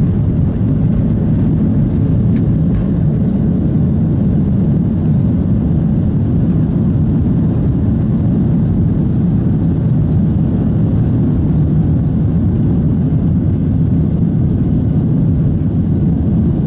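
Boeing 737-700's CFM56-7B jet engines at takeoff thrust, heard inside the cabin as a loud, steady low rumble through the takeoff run, liftoff and first climb.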